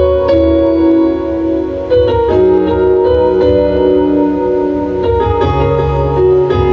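Yamaha Motif XF8 synthesizer played in sustained chords that change every second or two, with low bass notes joining about two seconds in. The keyboard is sounding and playing normally with its cracked keybed replaced by a new one.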